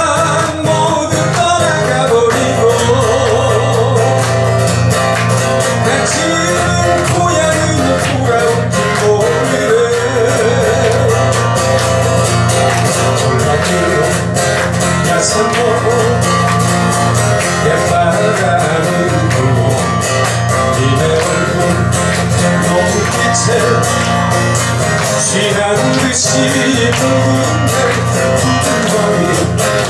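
Live guitar-accompanied music, with a wavering melody line over a steady low accompaniment.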